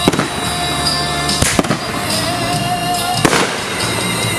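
Fireworks going off: sharp bangs right at the start, a quick pair about a second and a half in, and another a little past three seconds, over recorded music.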